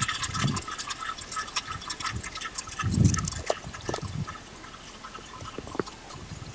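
Garden soil being dug and pushed aside around potato plants: scattered crumbling and trickling of dirt, with soft thumps about half a second and three seconds in.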